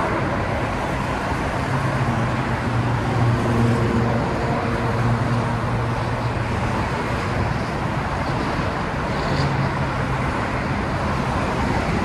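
Steady road-traffic noise, with the low hum of a light-rail train swelling and then fading over a few seconds as it pulls out of the station.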